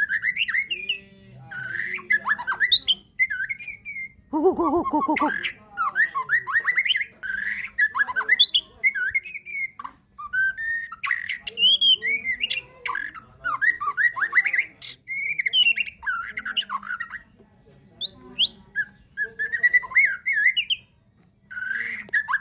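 A kept songbird singing a long, varied song of quick whistled and chirping phrases, broken by short pauses, with harsh squawking notes mixed in around the fifth second.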